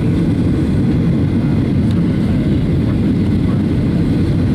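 Cabin noise inside a jet airliner on its landing approach: a steady, unbroken low rumble of the turbofan engines and airflow.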